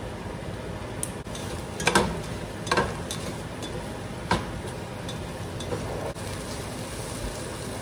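A utensil stirring small pork pieces in a pot on the stove, with a few sharp scrapes and knocks against the pot about two, three and four seconds in over a steady hiss.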